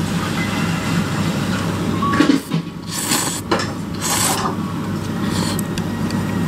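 Steady low hum of a soba shop's kitchen and ventilation, with a few short noisy rushes about two, three and four seconds in.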